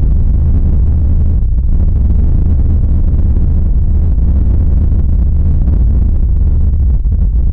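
A loud, steady low rumbling drone with a hiss-like haze above it, unchanging throughout: a creepy ambient sound effect.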